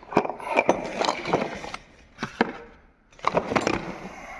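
Sharp knocks and clicks of removed diesel fuel injectors and other small hard parts being handled and set down, in three clusters with short pauses between.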